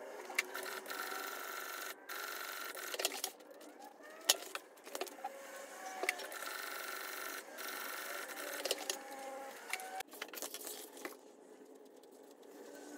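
Industrial sewing machine stitching steering-wheel cover material in several short runs of a second or two, stopping and starting, with sharp clicks from the machine and the material being handled between runs.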